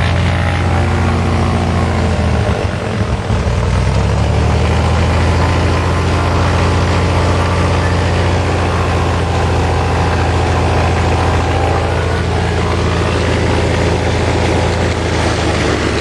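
Cessna 182's single piston engine and propeller running steadily, with a brief dip in engine speed about three seconds in before it picks back up.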